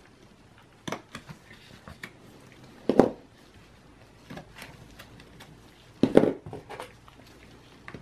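Small clicks and knocks of laptop DDR4 SO-DIMM memory modules being handled: sticks unclipped from their slots and set down on a tabletop. The loudest knocks come about three and six seconds in.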